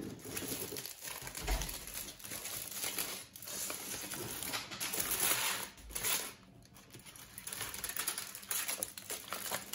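Aluminium foil crinkling as it is unwrapped from a sandwich by hand, in several bursts with brief pauses.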